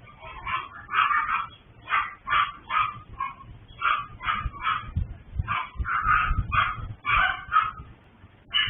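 Several small dogs in a kennel yapping over and over, short high barks a few times a second with a brief pause near the end: the incessant nuisance barking of a multi-dog breeder's kennel.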